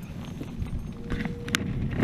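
Low, uneven rumble of wind on the microphone of a small open boat, with a few sharp clicks and knocks, the clearest about one and a half seconds in.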